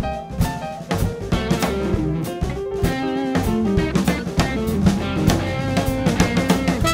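New Orleans-style big band music: a drum kit groove with rimshots and bass drum, under guitar and other pitched instrument lines.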